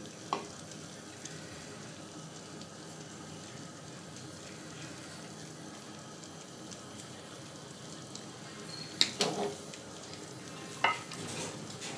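Quiet steady hiss under light kitchen handling as chocolate glaze is poured and spread over a cake. A few short clinks and knocks of a glass or spoon against the plate come near the end.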